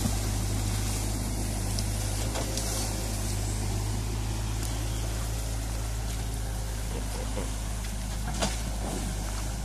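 Mini excavator's diesel engine running steadily over the rush of fast-flowing stream water, with a single short knock about eight seconds in.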